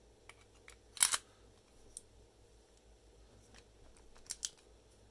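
Metal clicks of a hand-filed brass key being worked in a rotary padlock: one sharp click about a second in, a few faint ticks, and two quick clicks near the end.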